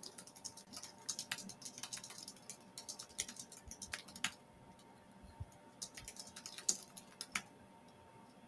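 Faint typing on a computer keyboard: quick runs of key clicks in the first half, sparser keystrokes later, over a faint steady hum.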